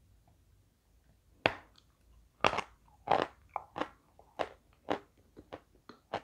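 A chunk of edible white chalk bitten off with one sharp crack about one and a half seconds in, then chewed in a run of crisp crunches, about two to three a second, loudest early and softening toward the end.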